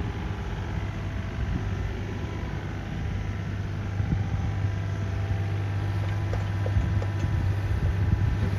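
Diesel engine of a Yanmar ViO35-6A mini excavator running steadily with a low hum that grows a little stronger about halfway through, with a few faint clicks near the end.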